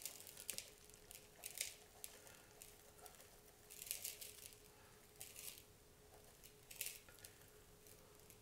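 Dry seasoning mix poured from a silicone bowl onto cut jicama sticks: faint, short pattering hisses of the powder and granules landing, coming in small spurts every second or so.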